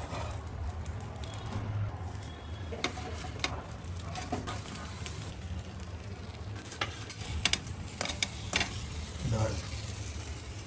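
Banana-leaf-wrapped fish parcels sizzling on a hot griddle and frying pan, with sharp clicks and scrapes of a metal slotted spatula against the pans as the parcels are turned and lifted.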